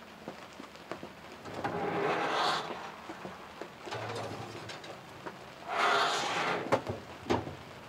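The oven of a Caribbean marine galley stove being opened, a pan slid in onto the rack, and the door shut again. There are two scraping swells about four seconds apart, small clinks between them, and two sharp clicks near the end.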